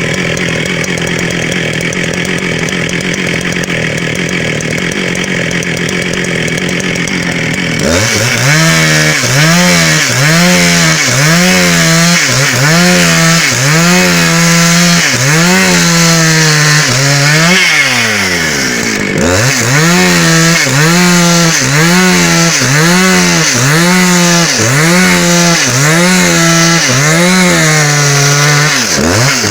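Two-stroke 272 chainsaw cutting dry hardwood: it runs at a steady high pitch for about eight seconds, then its engine note sags and recovers about once a second as it works the cut, with one deeper drop and pick-up just past the midpoint.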